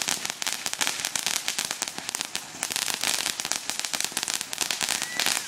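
Crackling firework throwing off showers of sparks: a dense, rapid crackle of many small pops, with a brief whistle near the end.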